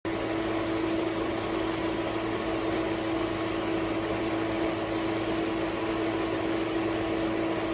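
Above-ground pool sand filter pump running steadily, a constant motor hum over rushing water.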